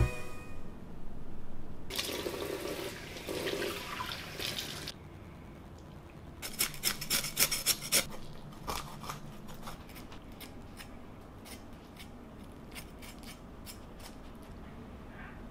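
Cleaver scraping the scales off a whole striped bass: a few seconds of rasping scrapes, then a quick run of strokes about seven seconds in, followed by lighter scattered scrapes and clicks of the blade against the fish and board.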